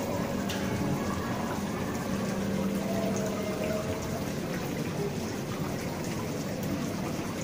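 Steady running and splashing water of an indoor koi pond.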